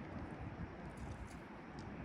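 Low rumble of wind on the microphone, with a few faint light ticks.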